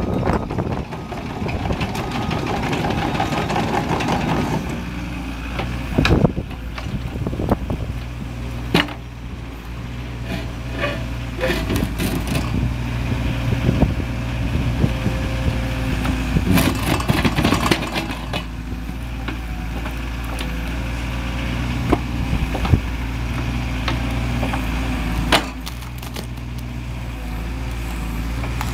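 Mini excavator engine running steadily under hydraulic load, with scraping and several sharp knocks as a steel 4-in-1 bucket attachment opens, closes and scrapes mud across concrete.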